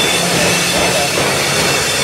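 Freight train of autorack cars rolling past: a steady sound of steel wheels on rail, with thin high-pitched wheel squeal over it.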